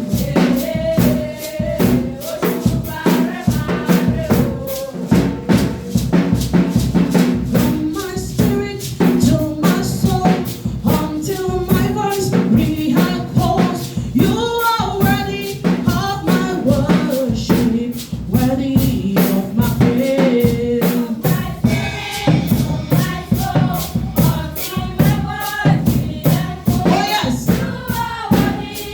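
Gospel worship music: voices singing over a steady, rapid drum and tambourine beat.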